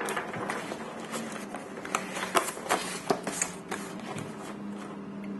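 Cardboard product box and its plastic wrapping being handled: irregular small crackles, rustles and taps.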